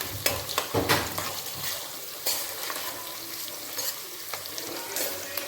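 Onion and garlic sizzling as they fry in oil in a pan, with a spatula scraping and clicking against the pan as they are stirred, being browned.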